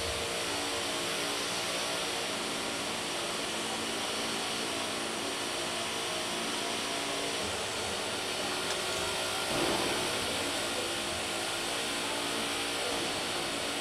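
Steady whirring hum and air noise of factory machinery on a production floor, with a brief swell about ten seconds in.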